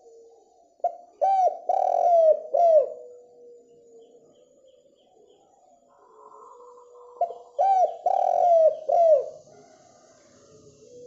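Spotted dove cooing in two song phrases, one about a second in and another about seven seconds in. Each phrase is a few quick, falling coos trailing into a long, steady low note.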